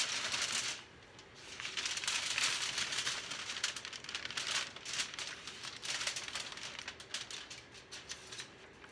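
Aluminium foil crinkling and rustling under a painted canvas as it is turned, in uneven bursts with small clicks that thin out toward the end.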